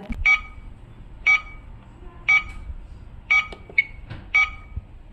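Realtime T304F+ biometric attendance machine beeping on and on: a short, high beep about once a second, with a few fainter beeps in between. This is the constant beep the device keeps making.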